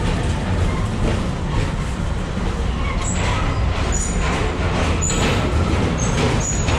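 Tomorrowland Transit Authority PeopleMover car riding along its elevated track: a steady low rumble, with a few short high-pitched tones from about three seconds in.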